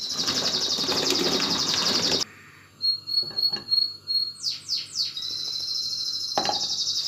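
A hand-pull food chopper whirs as it minces onions for about the first two seconds, over a steady pulsing insect trill. After a break the trill carries on, with a few short bird chirps, three quick falling calls about two-thirds through, and a single knock near the end.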